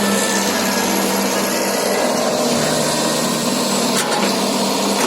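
Hitachi EX120-5 hydraulic excavator's four-cylinder turbodiesel running steadily under working load, with a rough scraping noise over it and a couple of short clicks about four seconds in.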